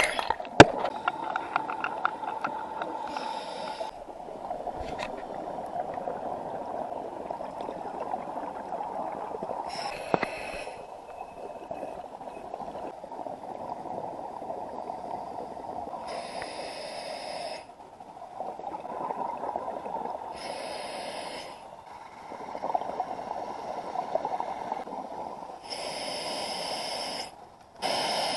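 A scuba diver breathing through a regulator underwater: a steady bubbling and water noise, broken by bursts of hiss about six times, a few seconds apart.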